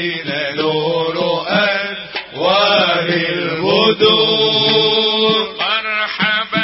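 Male voice chanting a Syrian religious nasheed in the unaccompanied Aleppine inshad style, with long held notes that bend and turn in ornamented melisma.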